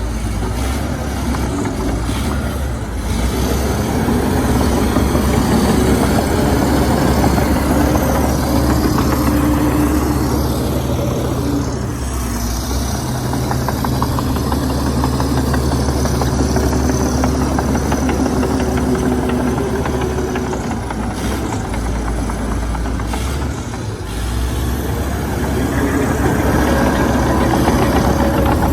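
Komatsu D61EX bulldozer's diesel engine running steadily, with a few brief dips in level.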